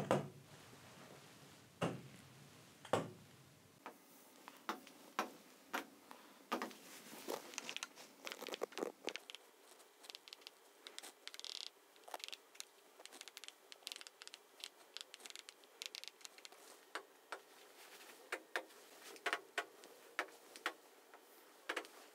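Irregular light taps and clicks of a pen on a large touchscreen as boxes and fields are selected, with a few louder knocks in the first three seconds.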